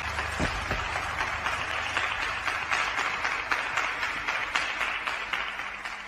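Audience applauding, slowly fading near the end.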